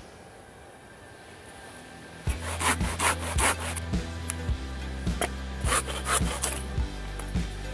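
Hand saw cutting through an old wooden plank in a run of short strokes, starting a couple of seconds in, over background music.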